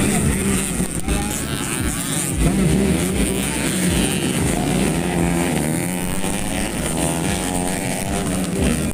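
Several modified underbone motorcycles racing on a dirt track, their engines revving up and down in overlapping, wavering tones as they pass.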